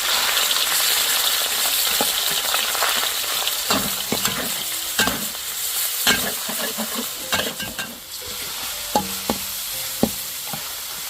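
Food sizzling as it fries in hot oil in a pan. The hiss is loud at first and eases off about eight seconds in, with a cooking utensil clinking and scraping against the pan several times.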